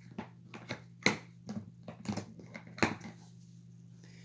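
Irregular clicks and knocks of a plastic animatronic figure being handled, with a few sharper knocks about a second in and near three seconds, over a steady low hum.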